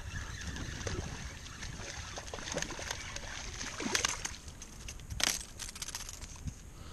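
Water sloshing and splashing around a fishing kayak as a small fish is landed, with scattered light knocks and two sharper splashes about four and five seconds in.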